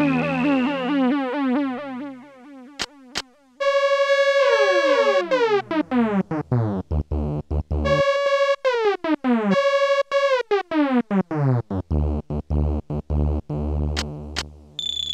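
Casio SA-10 Tone Bank keyboard playing its preset electronic tones. A held sound fades away, two short clicks follow, then from about three and a half seconds in comes a fast run of short notes, many sliding down in pitch, over low notes. A new high tone, falling in pitch, starts near the end.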